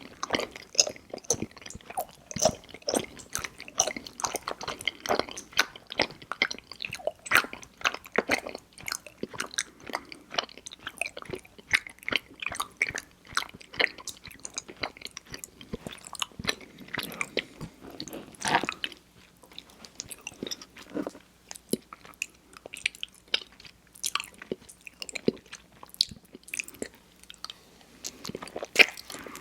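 Close-miked mouth sounds of eating mochi ice cream: soft, sticky chewing with wet smacks and clicks, irregular throughout and sparser in a couple of stretches past the middle.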